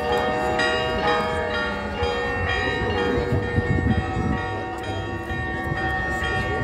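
Church bells ringing a peal: repeated strokes, every half second or so, with their long ringing tones overlapping.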